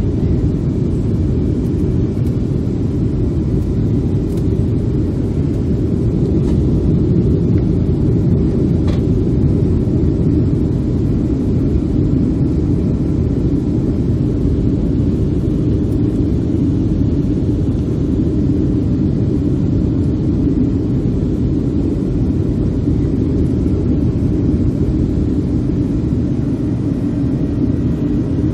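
Steady cabin noise of a jet airliner in flight, heard inside the passenger cabin: a constant low rumble of engines and airflow.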